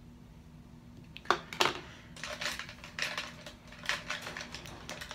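Makeup brushes and products being picked through and set down: two sharp clicks about a second in, then a run of lighter clicking and clattering.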